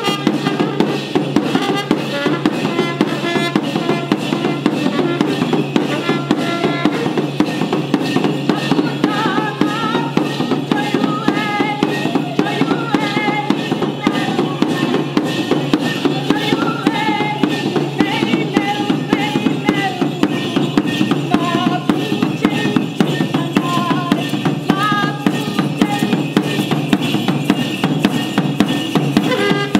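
Mapuche kultrun, a bowl drum with a leather head, beaten with a wooden stick in a fast, steady dance rhythm.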